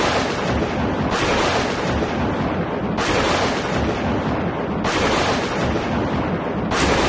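A loud rushing noise that surges afresh about every two seconds.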